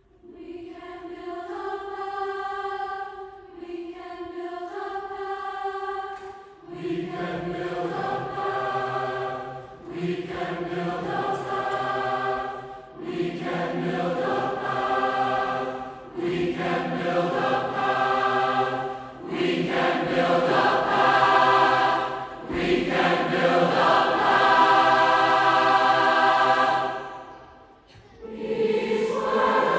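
Large massed choir singing a slow choral piece. It starts with a single high vocal line, and lower voices join in full chords about seven seconds in. The phrases are held and separated by short breaths, with a fade near the end before the voices come back in.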